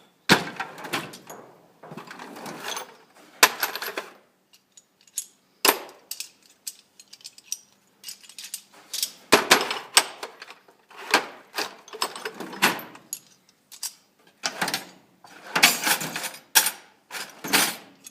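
Metal hand tools clattering and jangling as they are handled and rummaged through in a toolbox, a string of irregular clanks and rattles.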